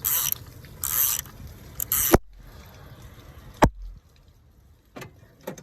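A socket ratchet working a nut off an alternator: three short scraping bursts of ratcheting in the first two seconds, then a few single sharp metallic knocks, the loudest two around the middle.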